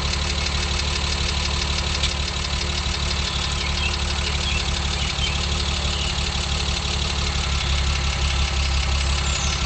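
Racing Dynamics K30.4 conversion of a BMW E36 325i, a 3040 cc bored-and-stroked straight-six with high-duration cams, chipped ECU and sports exhaust, idling steadily, heard close up at the twin tailpipes.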